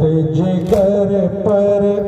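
A group of men chanting an Urdu noha, a lament for Imam Hussain, together in slow, sustained, gliding lines.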